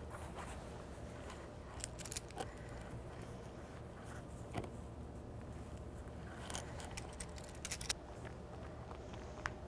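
Hands handling and smoothing layers of pinned fabric on a table: scattered soft rustles and small clicks, in short clusters about two seconds in, near the middle and a busier run near the end, over a low steady hum.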